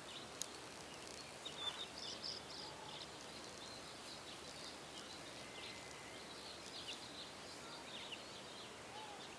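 Faint outdoor background with many short, high bird chirps scattered throughout, and a single sharp click about half a second in.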